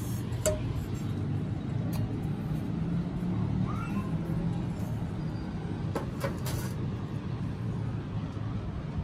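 Steady low rumble of road traffic in the background, with a few light knocks and clinks of a carbon steel frying pan being handled and set down on a table, two of them close together about six seconds in.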